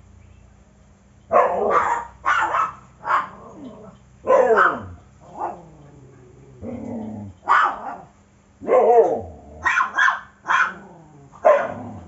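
A dog barking repeatedly in a string of short barks in uneven bursts, starting about a second in.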